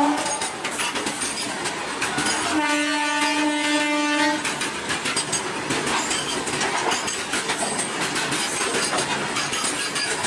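Loaded freight train of covered goods wagons rolling past at speed: a steady rush of wheels on rails with scattered wheel clicks. About two and a half seconds in, a train horn sounds once for nearly two seconds.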